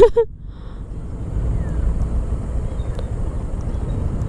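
Motor scooter riding over a broken, cracked concrete road: steady low engine and tyre rumble with wind buffeting the microphone, after a brief loud burst right at the start.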